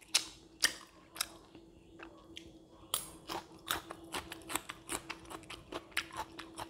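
Close-up eating sounds: a metal spoon scraping a ceramic plate a few times, then chewing fried rice with crispy pork cracklings, a quick run of crunchy clicks several a second.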